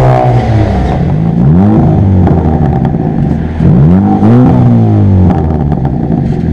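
Car engine revving up and dropping back twice, about one and a half and four seconds in, between stretches of lower steady running, heard close up from the bonnet.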